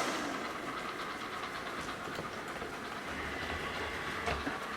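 ILIFE V5s robot vacuum running as it heads back to its charging dock: a steady whir of its motor and brushes with a few faint clicks.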